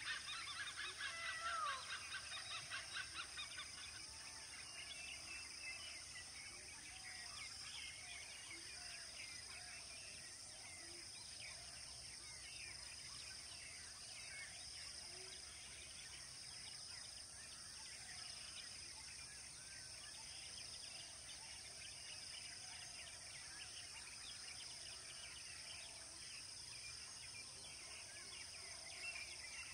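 Many birds chirping and calling, busiest in the first three seconds, over a steady high hiss.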